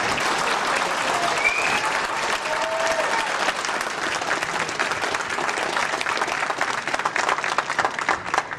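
A large audience applauding steadily, many hands clapping together, which thins out and stops right at the end.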